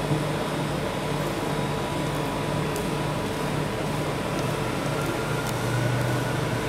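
Steady hum of a rolled ice cream machine's cold-plate refrigeration unit, with metal spatulas scraping the freezing mixture across the steel plate and a couple of light clicks of the spatula edge on the metal.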